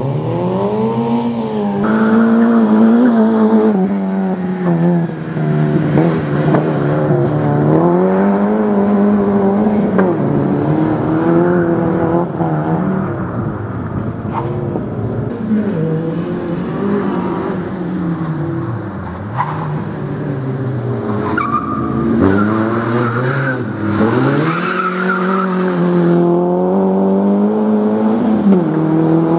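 Peugeot 106 rally car's four-cylinder engine being driven hard, its revs climbing and falling back over and over as it accelerates, shifts and lifts for the corners of the course.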